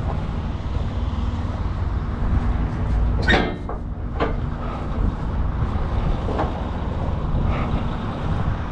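Semi truck's diesel engine idling steadily while it warms up, with two sharp clacks about three and four seconds in.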